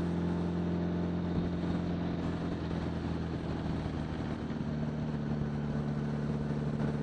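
1975 Honda Gold Wing GL1000's flat-four engine running steadily under light load in fourth gear at about 30 mph, heard from the rider's helmet microphone with a hiss of wind noise. The engine's pitch shifts slightly about five seconds in.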